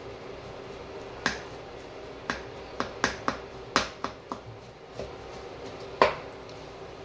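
Wooden spatula knocking against a wok while turning fried rice: about ten sharp, irregular clacks, the loudest about six seconds in.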